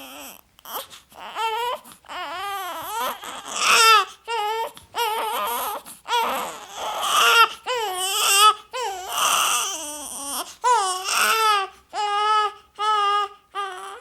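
A baby crying: a string of high, wavering wails, each a second or so long, broken by short gasps for breath, with several shorter cries near the end.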